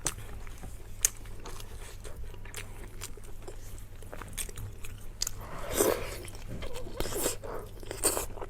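Close-up mouth sounds of biting into and chewing braised pork knuckle: irregular wet clicks and smacks, with a louder burst of chewing about six seconds in.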